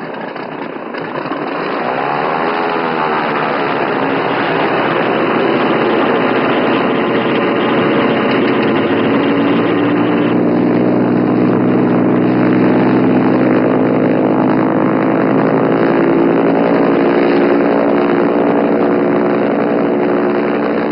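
Cessna 210 Centurion's six-cylinder piston engine and propeller running as the light plane taxis and starts its take-off run. The engine comes up in pitch and level over the first few seconds, then holds a steady, loud drone.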